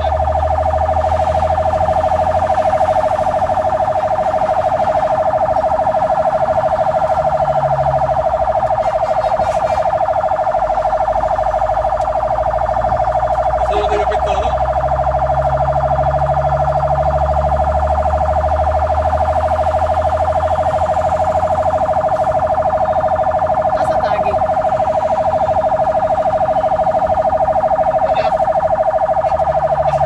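Fire engine's siren sounding without a break at one steady pitch, heard from inside the truck's cab over the low rumble of its engine.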